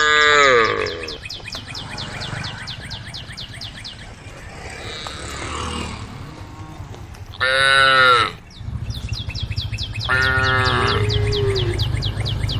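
Cows mooing: a falling moo at the start, a loud moo about seven seconds in, and another near ten seconds. Behind the calls runs a fast, steady high-pitched pulsing, and a low rumble sets in during the second half.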